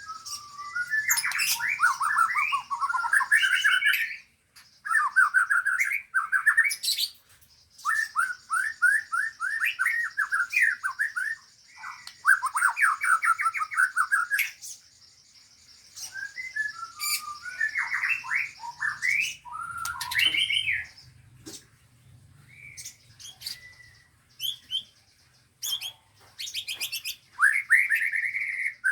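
Caged songbirds singing in bursts of rapid, sliding notes a few seconds long with short pauses between, several birds overlapping, over a steady high-pitched trill.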